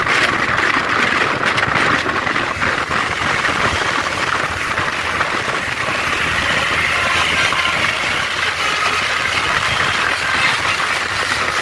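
A large bus on the road, its engine and tyre noise running steadily.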